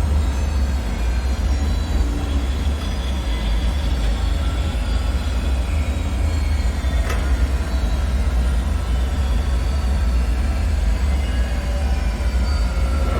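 Eerie underground bunker ambience: a steady deep rumble with faint, drawn-out metallic tones gliding slowly downward, and a single sharp click about seven seconds in.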